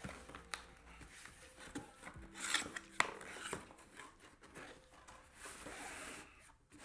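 Cardboard box and packaging being handled and opened: rustling and scraping with a few sharp knocks, the loudest a little before the middle.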